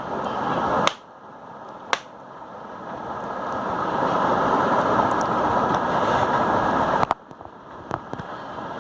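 Plastic clips of a Dell Inspiron laptop's back cover snapping into place as its edges are pressed, a handful of sharp clicks. Under them a noisy rushing sound swells for several seconds and stops abruptly about seven seconds in.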